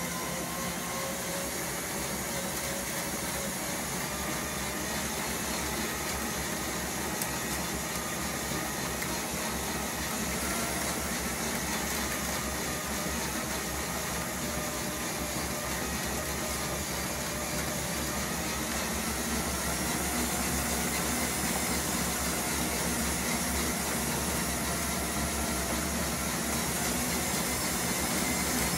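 A small electric motor runs steadily, turning a 3D-printed filament spool winder that rewinds filament onto a Bambu Lab spool. It makes a steady whine with faint, slowly wavering tones and grows slightly louder about two-thirds of the way through.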